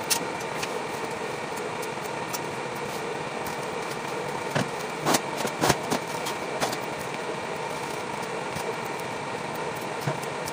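Steady mechanical hum with a few faint steady tones in it, and a handful of short snaps and crackles from leafy vegetable stems being broken and leaves plucked by hand, most of them a little before the middle and one near the end.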